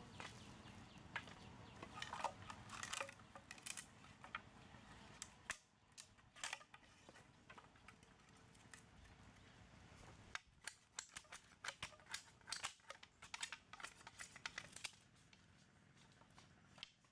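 Bamboo being cut, scraped and handled with a knife: a run of sharp clicks, snaps and scrapes of blade on bamboo and bamboo strips knocking together. It comes in two busy spells, the second starting about ten seconds in.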